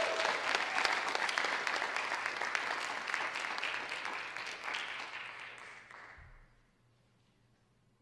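Audience applauding: many hands clapping together, tapering off and fading out about six seconds in.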